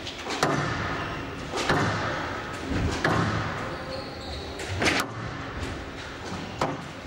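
Squash rally: the ball smacked by rackets and hitting the court walls, a sharp crack every second or two, echoing in a large hall.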